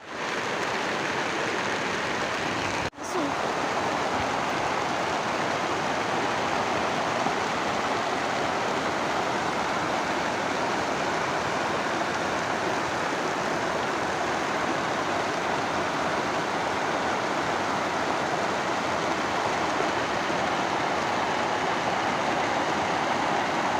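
Floodwater rushing in a steady, unbroken wash of water noise, cut off for a moment about three seconds in.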